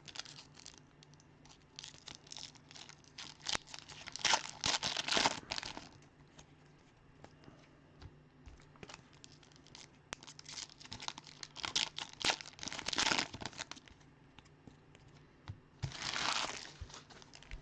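Trading-card pack wrappers being torn open and crinkled, with cards handled, in three bouts of tearing and rustling.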